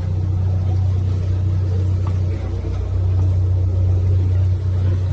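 Tour boat's motor running steadily under way, a constant low hum.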